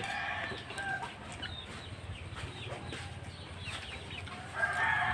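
Chickens clucking, then a rooster crowing, one long call starting near the end.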